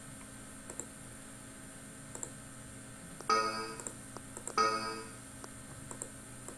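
Two short Windows system chimes about a second and a half apart, each a bright pitched tone that quickly dies away. They come as Windows reports that a file copy failed because the connected device stopped responding or was disconnected. Faint clicks sound in between.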